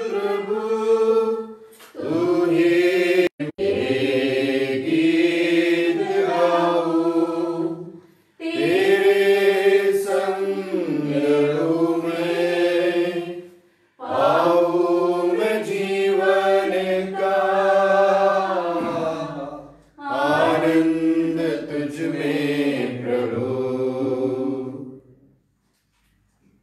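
Unaccompanied singing of a Hindi devotional hymn, in long sung phrases of about six seconds each with short breaths between, ending about 25 seconds in.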